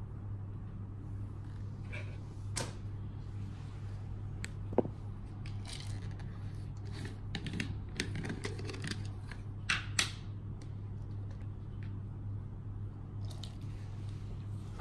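Scattered clicks, taps and short rustles of plastic treat containers and packaging being handled as dog treats are sorted, over a steady low hum. The sharpest click comes about five seconds in, and a close pair comes near ten seconds.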